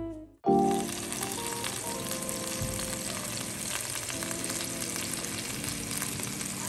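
Two cod fillets frying in hot fat in a pan: a steady sizzle that starts suddenly about half a second in.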